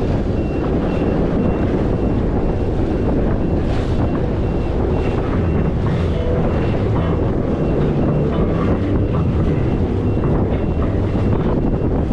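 Jet ski running at speed on open water, its engine and hull noise buried under heavy wind buffeting on the microphone.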